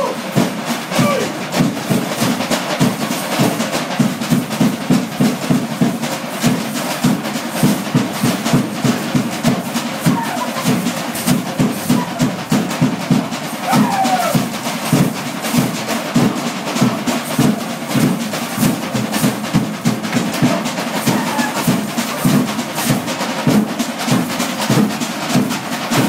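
Drum beating a steady, driving rhythm of about two to three strokes a second to accompany a Tongan group dance, with men's voices faintly behind it.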